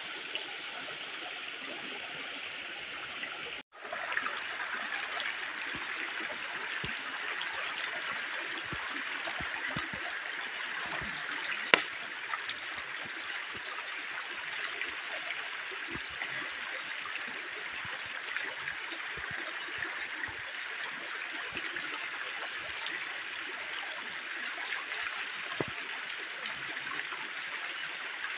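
Forest stream running steadily over rocks, an even rushing with scattered small ticks. A single sharp tick comes about twelve seconds in, and the sound cuts out for an instant a few seconds in.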